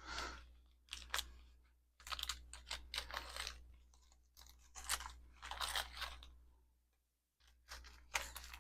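Small plastic jewelry bag crinkling and rustling as it is handled and opened, in irregular bursts with a short lull near the end.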